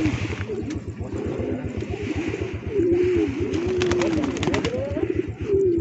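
Domestic pigeons cooing, repeated rising-and-falling coos that overlap one another, over a low, rapid, even pulsing throb.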